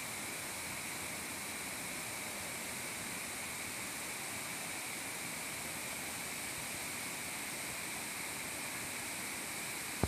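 Steady rushing of stream water cascading over rocks and spilling over a low weir into a pool, even and unbroken throughout.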